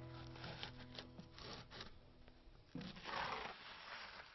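Flat trowel scraping over KERDI membrane as it is pressed into fresh thinset mortar: a run of short scraping strokes, then one louder, longer scrape about three seconds in.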